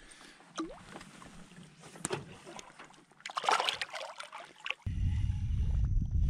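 A bass being released by hand into the lake, kicking and splashing at the surface about three seconds in. After that comes a steady low rumble that starts abruptly.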